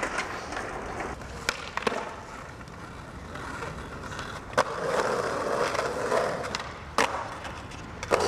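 Skateboard wheels rolling over pavement, with several sharp clacks of the board being popped and landed. The rolling grows louder for a stretch in the second half.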